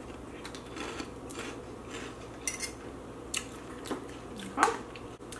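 Light clinks and knocks of plates and food being moved about on a table, a short click roughly every half second, with a louder knock near the end.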